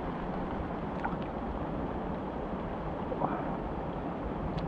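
Steady rain falling on shallow pond water, with a few small drips and splashes.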